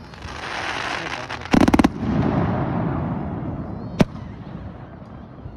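Aerial fireworks bursting: a crackling hiss, then a rapid cluster of loud bangs about a second and a half in, followed by a low rumble, and a single sharp bang about four seconds in.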